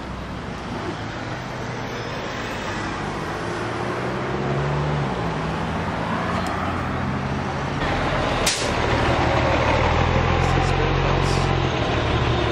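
Road traffic: vehicle engines running and passing, with a heavier engine growing louder about two-thirds of the way in, marked by a sharp click and a short hiss.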